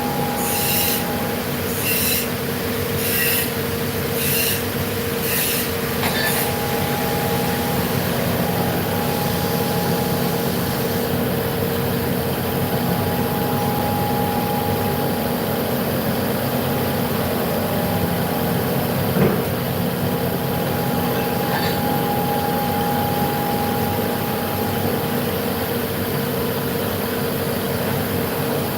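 CNC vertical machining centre running, a steady machine whine of several tones over a hiss. For the first six seconds a high rasping stroke repeats about once a second, then the sound settles steady, with one sharp click partway through.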